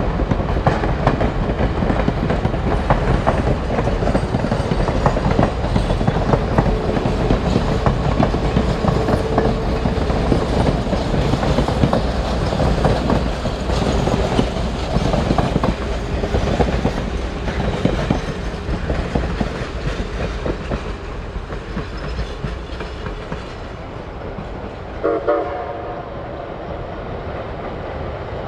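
Steam excursion train's passenger cars rolling past close by, their wheels clicking over the rail joints, the sound easing off over the last few seconds. Near the end comes a short whistle toot.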